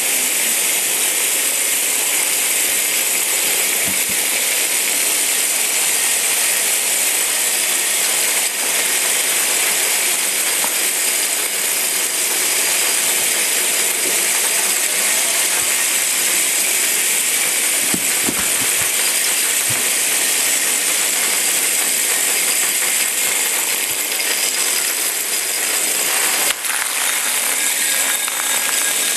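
A group of Hexbug Bobble Bots, small vibration-motor toy robots, buzzing and rattling steadily as they skitter over a hard floor. Near the end there is a single sharp click.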